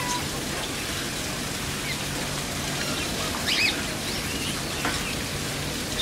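Assorted aviary birds chirping and calling in short scattered notes over a steady hiss, the loudest a quick pair of high arched calls about three and a half seconds in.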